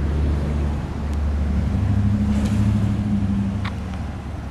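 A motor vehicle passing on the street, its engine hum swelling from about a second in and fading near the end, over a steady low traffic rumble. There is a brief high chirp near the end.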